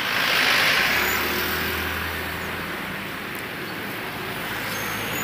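Road traffic beside a footpath: a car passes close by, its noise swelling to a peak about half a second in and then fading. A low engine hum from another vehicle runs on for a couple of seconds after it.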